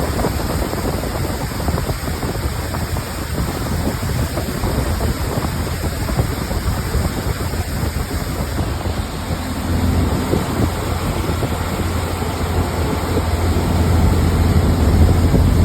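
Wind buffeting the microphone and water rushing past a moving boat, with a steady low hum that grows stronger about ten seconds in.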